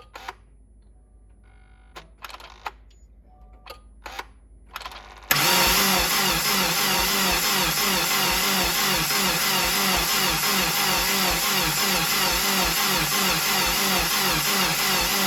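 Starter motor cranking the rebuilt 2017 Subaru WRX's turbocharged 2.0-litre flat-four engine. It comes in suddenly about five seconds in, turns it over for about ten seconds with an even pulsing rhythm of compression strokes, and stops without the engine firing. It turns over slowly, the battery weak.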